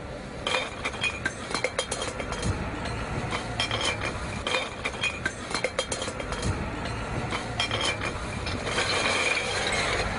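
A series of irregular sharp clinks and knocks, some with a brief ringing tone, and a hiss that swells in the last second or so.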